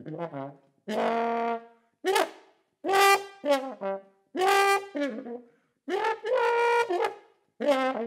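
Trombone played in short, speech-like phrases, about six of them separated by brief silences, with some notes sliding up into pitch as they begin.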